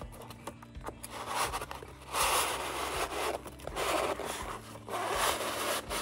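A polystyrene foam packing block scraping against the inside of a cardboard box as it is worked out in several pulls, about four rasping strokes of a second each.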